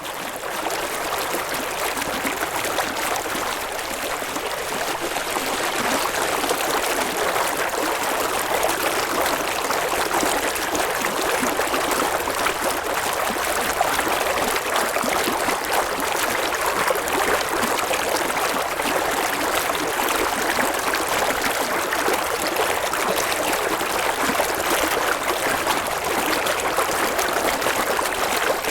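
Flowing water in a stream, a steady rushing babble that holds level throughout.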